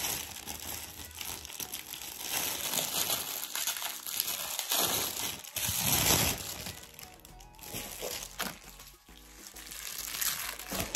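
Clear plastic bag crinkling and rustling as it is handled and pulled off an artificial hanging plant, busiest in the first seven seconds. Soft background music is also heard, clearer near the end.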